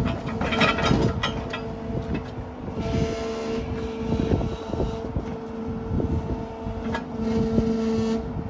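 Brokk 150 demolition robot's electrically driven hydraulics running while the arm moves: a steady two-tone hum from the pump with low rumble, several sharp knocks in the first second and again near 7 s, and a hiss that rises twice.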